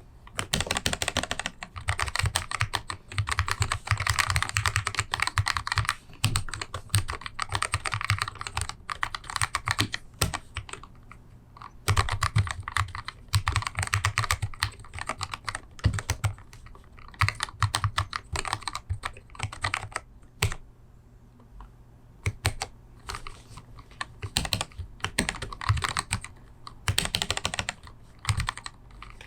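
Typing on a handbuilt split mechanical keyboard with a 3D-printed case and XDA-profile keycaps: fast runs of key clicks in bursts, broken by short pauses.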